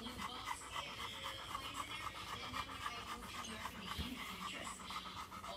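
Dog panting rapidly and evenly, a fast steady train of short breaths.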